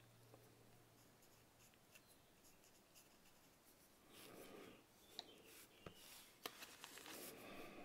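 Quiet handling noise at a workbench: faint scratching and rubbing from about halfway through, with a few light clicks, as a small paintbrush is moved about and set down on the table.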